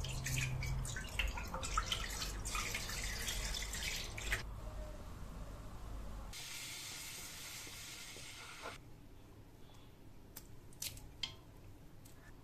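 Milk pouring and splashing into a wide pan for the first four seconds or so. After a short lull comes an even hiss of milk at a rolling boil for a couple of seconds, then a few faint light taps.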